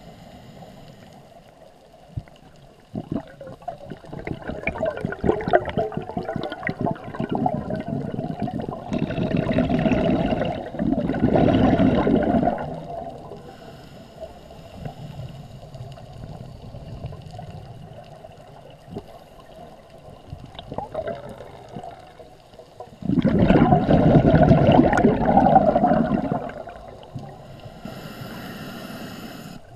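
Scuba regulator exhaust heard underwater: exhaled air bubbles out in long gurgling bursts, one from a few seconds in to about twelve seconds and another later. Quieter hiss comes between the bursts.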